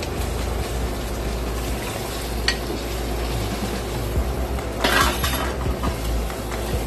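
Wooden spoon stirring pieces of tripe into tomato sauce in a pot on the stove, with wet scraping and stirring sounds. A louder scrape comes about five seconds in.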